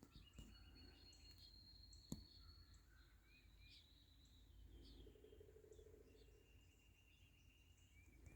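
Near silence: faint outdoor ambience with thin, high-pitched trills and chirps, and one short click about two seconds in.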